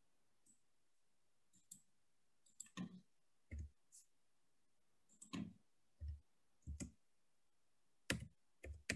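Faint, scattered clicks from a computer keyboard and mouse while text is being edited: about a dozen single clicks at irregular intervals, some in close pairs.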